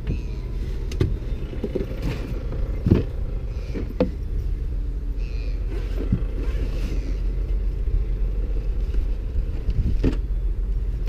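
A steady low rumble under a few scattered knocks and clicks as tools are rummaged out of a box. No power tool is running yet.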